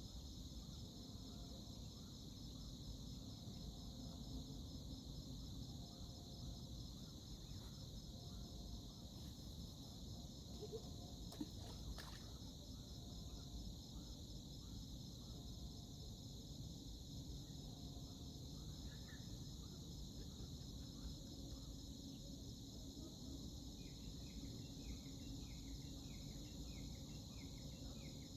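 Faint, steady high-pitched chorus of crickets trilling continuously over a low background hiss. A quick run of short, repeated chirps joins in near the end.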